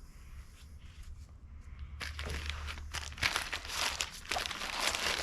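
Plastic packaging crinkling and rustling as small accessory parts are handled and unwrapped, starting about two seconds in and carrying on in quick crackles.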